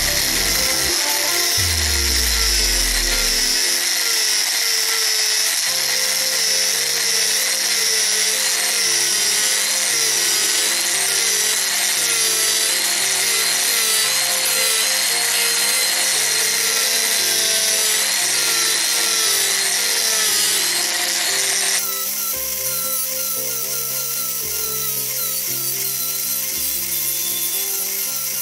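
Handheld rotary tool with a sanding disc running at high speed and grinding along the edges of wooden frames, a steady high whine with sanding noise, over background music. The grinding noise drops and becomes quieter about 22 seconds in.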